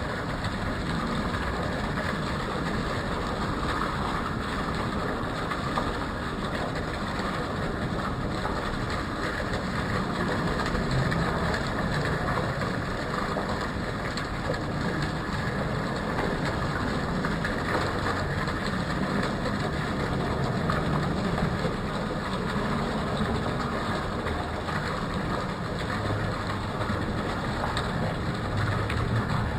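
Steady city background noise: a continuous traffic rumble and hiss with no clear changes.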